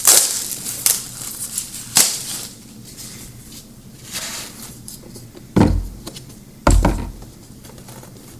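Folded card game board being handled and unfolded: a few sharp taps and rustles in the first two seconds, then two dull thumps about a second apart as its panels swing open.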